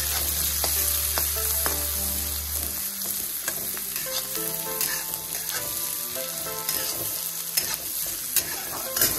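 Sliced onions and green chillies sizzling in hot oil in a metal kadhai, with a spatula scraping and tapping the pan as they are stirred: a light sauté.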